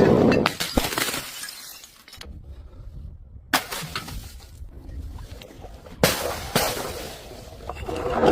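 Glass bottles breaking and being crushed: several sharp shattering cracks, about a second in, at three and a half seconds and twice around six seconds, with crunching, tinkling glass between them and a short lull before the second crack.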